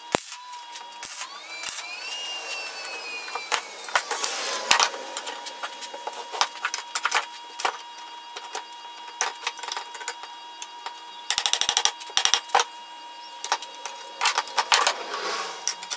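Square steel tubing frame being handled and adjusted on a wooden table, with repeated metal clanks, taps and clicks and a sliding, squealing scrape early on. A quick rattle of clicks comes just past the middle.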